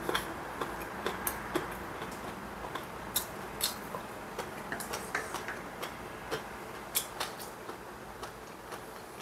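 Eating sounds: chopsticks and chewing of battered fried peppers, heard as sharp, irregular clicks and crunches about one or two a second over a steady low hiss.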